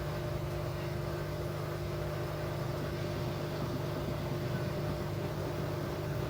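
LG 8 kg washing machine running, a steady motor hum with several even tones and no separate knocks.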